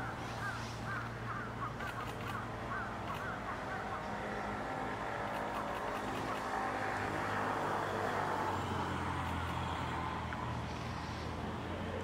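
Steady traffic rumble that swells from about six seconds in, as with a vehicle passing. In the first two seconds a bird gives a quick run of short repeated call notes, about four a second.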